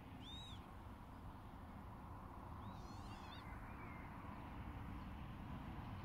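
Northern lapwings calling twice: wheezy, rising-then-falling 'pee-wit' calls, a short one right at the start and a longer, wavering one about three seconds in. The birds are circling a walker near what he takes for their nest.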